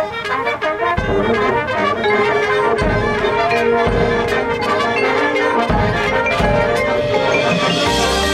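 High school marching band playing its show: quick mallet-percussion runs over held brass notes, with a few low drum hits.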